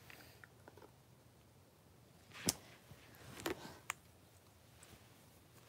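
Quiet room tone broken by a few faint knocks and clicks: a sharp one about two and a half seconds in, then a small cluster about a second later.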